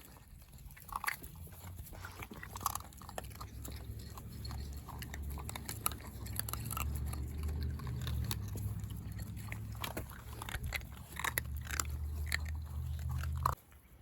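A dog chewing, with scattered short crunching clicks over a steady low rumble that cuts off suddenly near the end.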